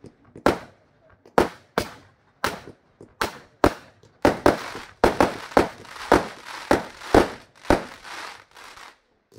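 Aerial fireworks going off in a quick, even series of sharp bangs, about two to three a second. From about four seconds in, a crackling fizz fills the gaps between the bangs, then thins out near the end.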